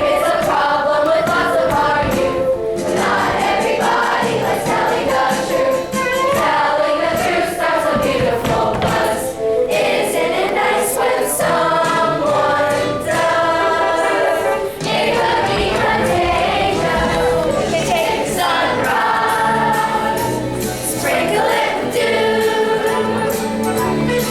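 A group of voices singing together as a choir, with musical accompaniment.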